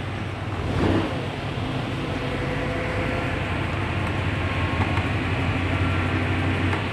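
Isuzu Giga truck's diesel engine idling steadily, heard from inside the cab.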